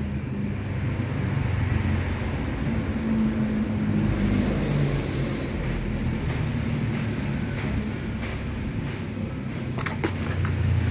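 A steady low rumble of a running engine or road traffic, with a brief hiss about four seconds in and a couple of faint clicks near the end.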